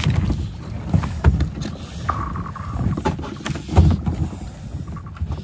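Thin lake ice cracking and breaking under a plastic kayak as it is hauled forward with an ice axe. Sharp cracks and crunches run over low thumps of the hull against the ice sheets, with a heavier thump twice.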